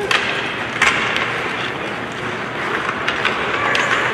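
Ice hockey play: skate blades scraping and carving the ice, with sharp clacks of sticks on the puck as a faceoff is taken, the loudest just at the start and just under a second in.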